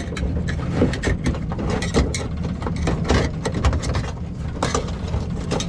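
Irregular clicks, scrapes and knocks of a metal crab hook working among the anchor chain and gear in a small boat's anchor well, over a steady low rumble.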